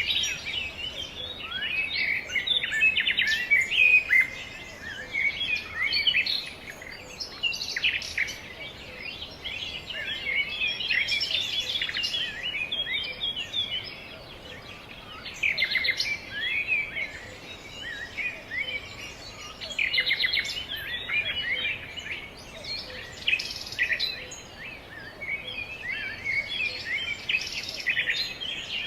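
Small songbirds chirping and twittering in a dense, continuous chorus of short, high, overlapping calls and trills, rising and falling in bouts every few seconds.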